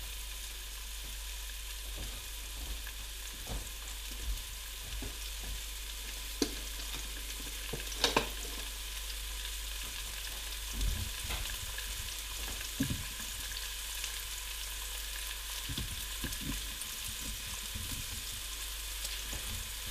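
Chopped onion, garlic, red pepper and tomato sizzling in hot olive oil in an aluminium saucepan on a high heat: a steady sizzle with scattered crackles and a few sharper pops. This is the vegetables starting to sauté.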